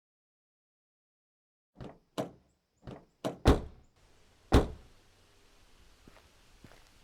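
Six knocks on a door, unevenly spaced, the last two the heaviest, followed by faint light taps.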